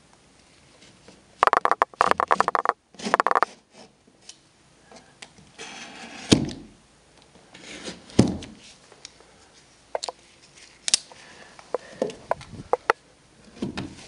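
Utility knife cutting into drywall: two bursts of quick scraping strokes about a second and a half in and just after three seconds, then single scrapes and light knocks. A drywall saw starts working the cut near the end.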